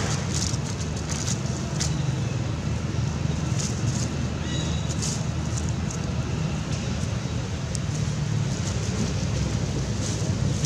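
Dry leaf litter crackling and rustling in short scattered bursts as baby macaques paw through it, over a steady low rumble and hiss.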